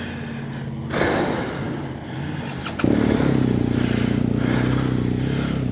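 Motorcycle engine idling. About three seconds in, a louder engine note comes in suddenly and holds steady.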